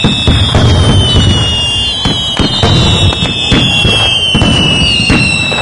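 Fireworks: several long whistles sliding slowly down in pitch over a run of loud bangs and crackles.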